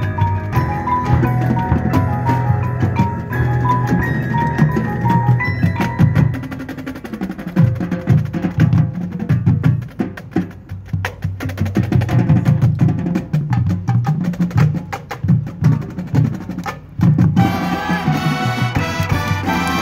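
High school marching band performing its field show. A mallet melody over sustained low winds gives way, about seven seconds in, to a passage carried mostly by drums and percussion. After a short drop-off near the end, the full band comes back in with sustained winds.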